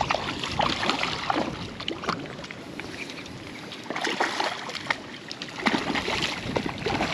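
Water splashing and sloshing in irregular bursts, with short clicks and spatters in clusters near the start, around four seconds in and again near the end.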